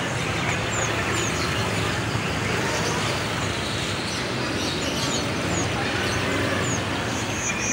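Busy street-market ambience: a steady din of traffic and motorbikes with background voices, and a bird giving a few short, high chirps.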